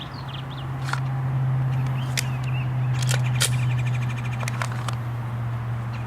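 Steady low hum with birds chirping. A handful of short, sharp clicks and cracks are scattered through the first five seconds.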